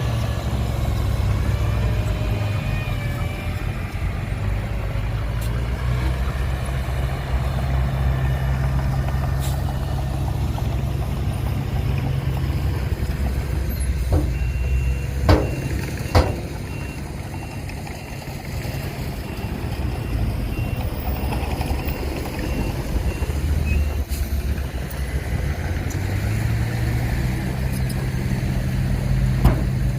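Heavy diesel earthmoving machinery running steadily, its engine drone easing off for a while past the middle and building again near the end. A few sharp knocks sound about halfway through, and a reversing alarm beeps for several seconds in the middle.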